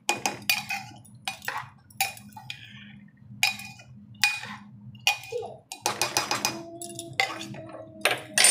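Metal spoon scraping and clinking against the inside of an aluminium pressure cooker as frying vegetables and masala are stirred, in quick repeated strokes about twice a second, over a low steady hum.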